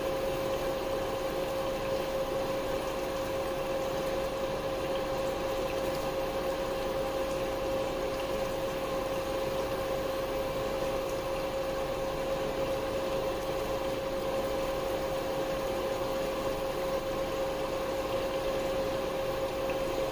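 Steady machine hum with one constant mid-pitched tone over an even hiss, unchanging throughout.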